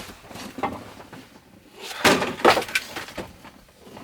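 Frozen firewood being split: a faint knock, then a quick cluster of sharp cracking knocks about two seconds in.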